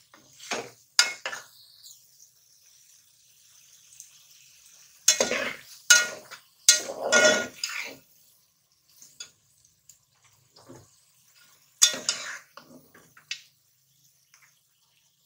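A metal spatula scraping and clattering against an aluminium pot as thick cooked bhujia is stirred and scooped. The clatter comes in short irregular bouts: about a second in, again from about five to eight seconds, and around twelve seconds.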